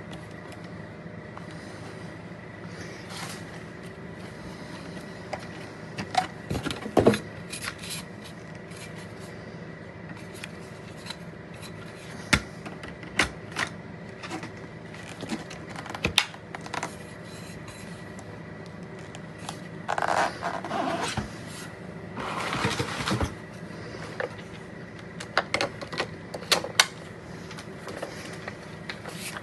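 Intermittent handling noises, scattered clicks, knocks and scrapes with two longer rustling stretches about two-thirds of the way through, over a steady low hum.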